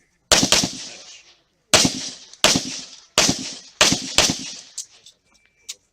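Handgun being fired rapidly in a practical-shooting stage: about seven sharp pistol shots in quick singles and a close pair, each with a short echo, followed by a couple of faint clicks or knocks near the end.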